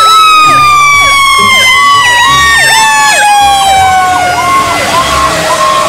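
Fire engine sirens sounding loudly: a rapid yelping siren sweeping up and down about twice a second over a second long siren tone that slowly falls in pitch. Both stop abruptly near the end.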